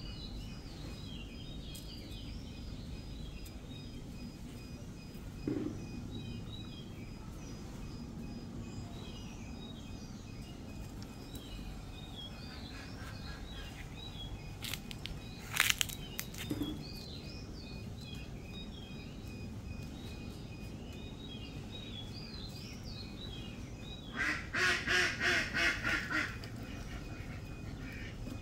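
Birds calling outdoors: small birds chirping and twittering throughout, then a loud run of about seven quick repeated calls near the end. A brief sharp noise sounds about halfway through.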